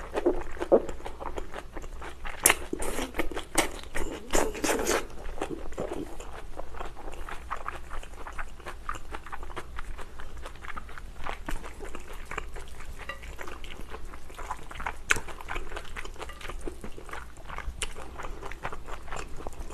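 Close-up eating sounds of a person slurping and chewing thick, chewy Chinese glass noodles. The slurps and bites come thickest and loudest about two to five seconds in, then give way to quieter, steady chewing clicks.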